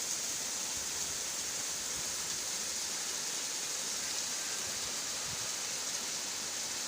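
Steady, even rush of water from the Kewai waterfall and its stream.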